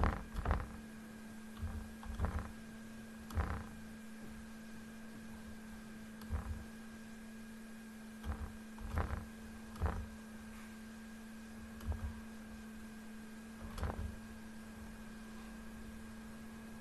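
Computer mouse buttons clicking, single clicks and quick pairs at irregular intervals of a second or two, over a steady electrical hum.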